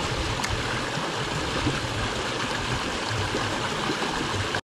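Shallow creek water rushing over a rocky riffle, a steady wash of water that cuts off suddenly near the end.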